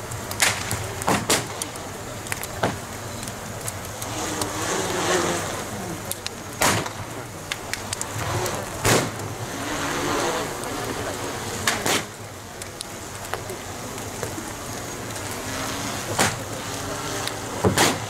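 Large bonfire of a burning wooden boat and heaped joss paper, a steady rushing of flames broken by loud sharp cracks every few seconds, over crowd chatter.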